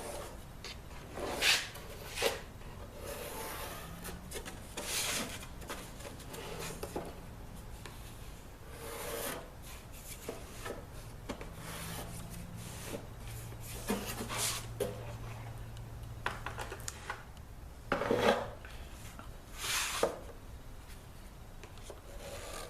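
Hand jack plane shaving wood in separate strokes, each a short rasping swish, a second to several seconds apart, flattening a wooden dulcimer part a little at a time.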